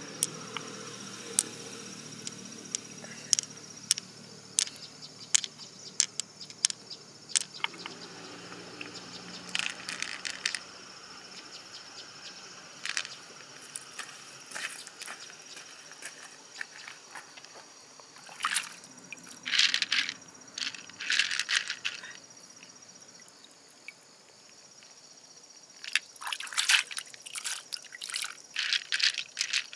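Pearls clicking against one another and against the shell as they are picked out of a large freshwater mussel, then poured by the handful onto a heap of pearls in an open shell, with water dripping. Single clicks at first give way to two clattering runs of clicks in the second half, over a steady high insect trill that stops a little past two-thirds of the way through.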